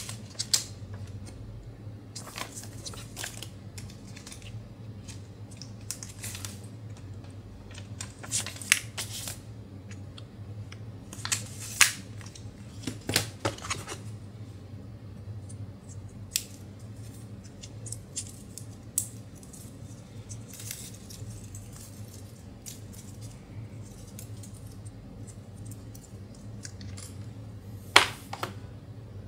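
Hands handling paper and cardboard packaging: a paper documentation sleeve rustles, then scattered clicks and taps come as a braided charging cable is lifted from the box insert and pulled free, with a sharp click near the end. A faint low hum runs underneath.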